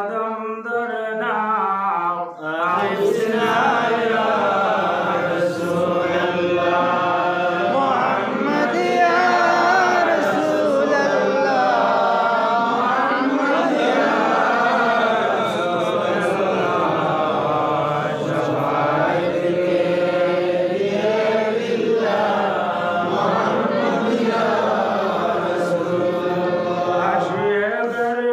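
Voices chanting durood sharif (salawat on the Prophet) to a slow melody, continuous apart from a brief break about two seconds in.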